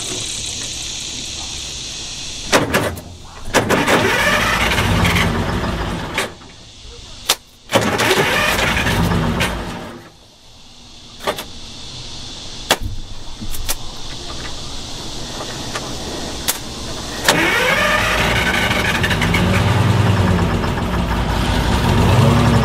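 The DROTT excavator's long-idle engine cranking on the starter in several long bursts with short pauses between them, turning over without catching and running on its own. It isn't getting fuel.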